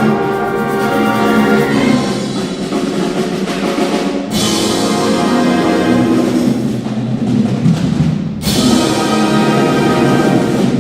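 Concert wind band playing sustained full chords with brass, timpani and percussion. Two loud accented hits come in, one about four seconds in and another about four seconds later, each opening a new phrase.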